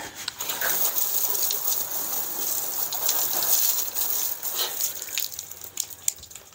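Garden hose spray nozzle jetting water against the house siding under the awning, a steady hiss with spattering and dripping as mud is washed off. It eases off near the end.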